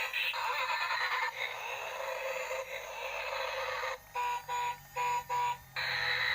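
Toy excavator robot's small built-in speaker playing electronic sound effects: a hissing, static-like noise, then four short beeps about 0.4 s apart a little past halfway, then the hiss again.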